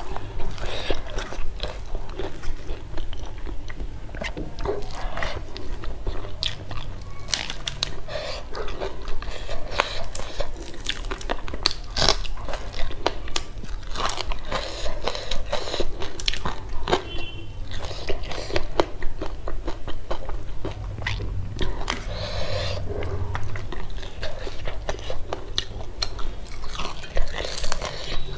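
Close-miked eating sounds: wet chewing with many irregular, sharp crunches and clicks as food is bitten and chewed.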